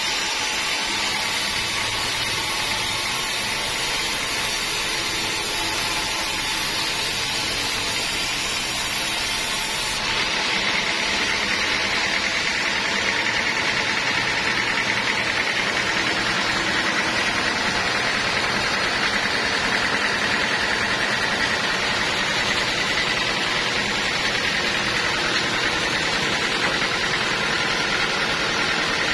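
Sawmill saw machinery running steadily: a continuous hiss with a high whine. The sound shifts slightly about ten seconds in.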